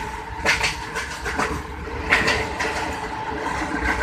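Passenger train running, heard from inside a coach: a steady low rumble with irregular sharp knocks of the wheels over the rail joints.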